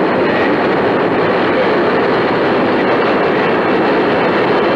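Steady rushing noise of airflow and engines in a DC-10 cockpit, as picked up by the cockpit voice recorder's microphone, with no speech.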